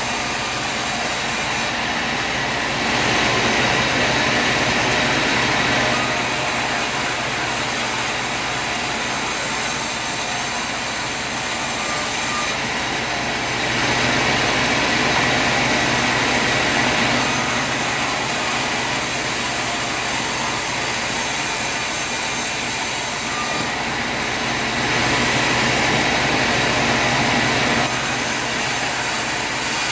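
Sawmill saw and machinery running with a steady mechanical noise. It gets louder and brighter for a few seconds three times, about ten seconds apart, as the saw passes through wood.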